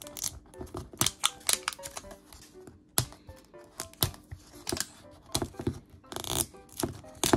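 Plastic wrapping on a Miniverse capsule being picked at and torn by hand: irregular crinkles, crackles and sharp clicks. Soft background music plays underneath.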